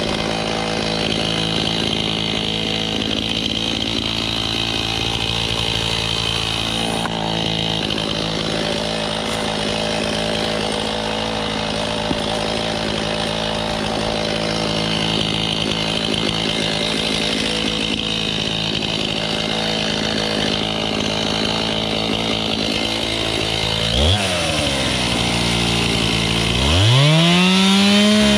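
Stihl Farm Boss two-stroke chainsaw running steadily at idle. About 24 seconds in the throttle is blipped briefly, and near the end the saw is revved up to full speed and held there.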